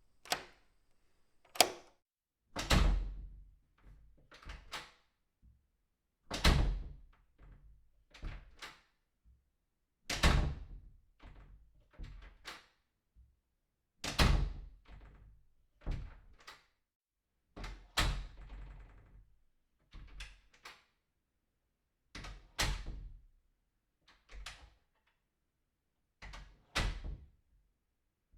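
A door being opened and shut over and over: handle and latch clicks, then a thud as it closes, in a group about every four seconds.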